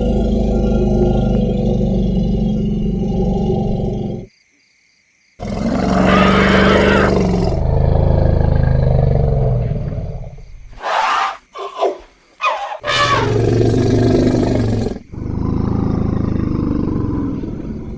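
Elephant calls: a low moaning rumble, then after about a second of silence a loud trumpeting call, several short high trumpet calls near the middle, and more low moans, cut together from different takes.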